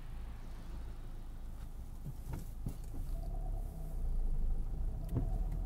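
Car engine and road rumble heard from inside the cabin, steady and low, with a few short knocks and a faint steady tone coming in about three seconds in.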